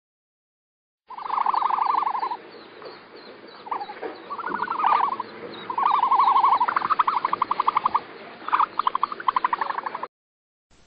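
Repeated bouts of rapid, trilling animal calls, each about a second long, starting about a second in. Several bouts break into distinct pulses at about ten a second.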